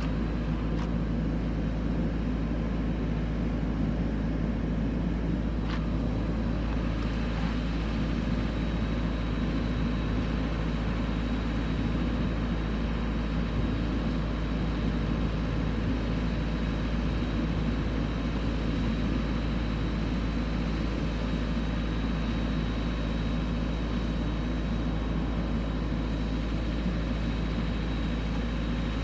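Steady outdoor background rumble with a constant low hum and a faint, steady high tone, unchanging throughout; no vehicle passes.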